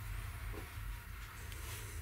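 Quiet room tone with a steady low hum and no distinct event.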